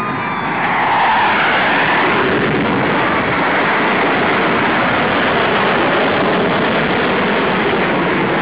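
Fighter jet making a fast, low pass: loud jet-engine noise that swells about half a second in, with a falling pitch sweep as it goes by, then a steady rush as it climbs away.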